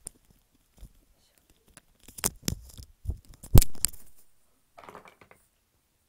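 Handling noise close to the microphone: a run of clicks, knocks and rustling, with the loudest knock about three and a half seconds in and a short soft rustle near the end.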